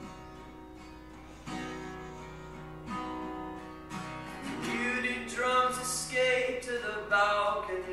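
A man playing a solo acoustic guitar: a few slow strummed chords, then he starts singing over the guitar about halfway through, and the singing is louder than the opening chords.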